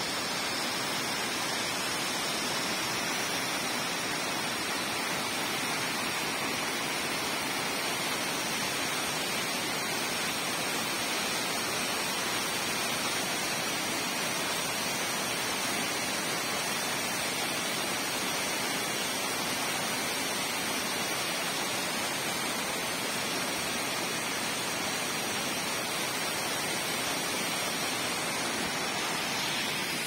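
A tall cascading waterfall, about 77 metres of tiered drops over rock ledges, rushing steadily without a break.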